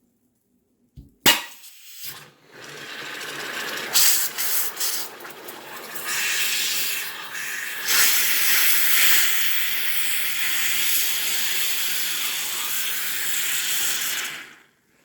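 Swing-top or capped bottle of over-carbonated kefir water being opened: a sharp pop as the seal gives, then a long, loud hiss of escaping gas and fizzing foam that surges twice and stops abruptly near the end. The sound is of pressure built up from too long a second fermentation without burping the bottle.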